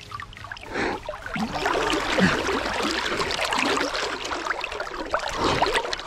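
River water sloshing and gurgling around a person wading waist-deep, a busy jumble of small splashes and trickles that swells about a second in.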